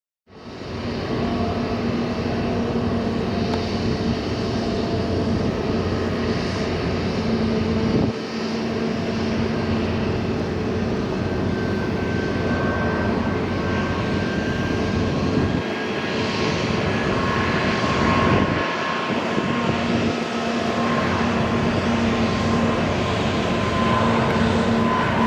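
Airbus airliner jet engines running: a steady rumble with several held whining tones, some drifting slowly in pitch, and a few brief dips in the low rumble.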